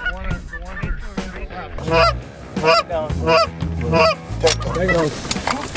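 Canada goose honks, a rapid series of short calls about every two-thirds of a second, loudest from about two seconds in.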